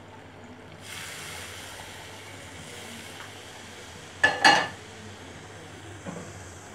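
Hot water poured into a pan of thick chicken masala, a steady rushing hiss for about three seconds, then a short clatter about four seconds in.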